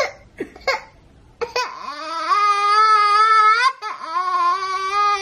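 Toddler girl crying: after a few short sounds in the first second, she breaks into a long, high wail about a second and a half in, catches her breath briefly, then wails again.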